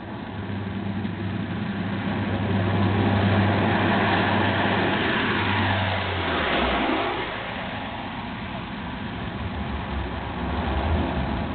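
Lockheed C-130 Hercules' four turboprop engines on a low pass, growing louder as it approaches, then dropping in pitch as it passes overhead about six and a half seconds in, and quieter as it moves away.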